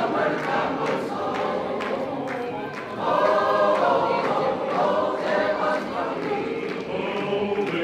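A choir singing together, many voices at once, growing louder about three seconds in.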